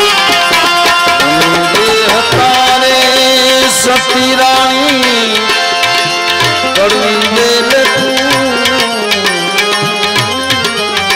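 Live devotional bhajan music: tabla drumming under a melody line that slides and bends in pitch, pausing briefly about halfway through before carrying on.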